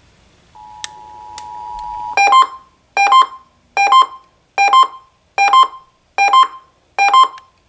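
Emergency Alert System tones for a required monthly test: a steady two-tone attention signal lasting about a second and a half, then a run of sharp, evenly spaced beeps, a little more than one a second.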